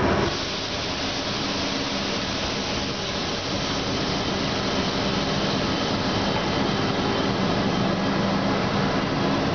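Inside a train locomotive's cab as it brakes from walking pace almost to a stop: a steady hiss over a low machinery hum, with no wheel beat.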